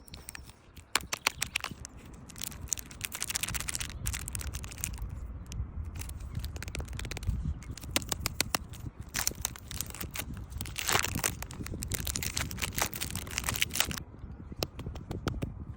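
KitKat wrapper being handled and unwrapped: dense sharp crinkling and crackling that stops near the end, over a faint low rumble.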